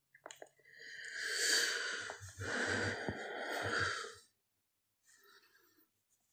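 A person breathing out long and heavily, a breathy rush in two parts with a few soft low thumps in the second.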